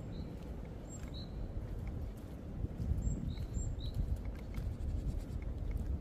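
Strong wind rumbling through a leafless forest, with a bird giving about four short two-note calls, a high note followed by a lower one, in the first four seconds. Faint light crackles of footsteps on leaf litter are scattered throughout.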